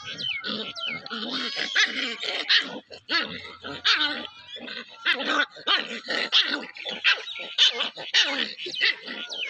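A puppy giving many short barks in quick succession, about two or three a second.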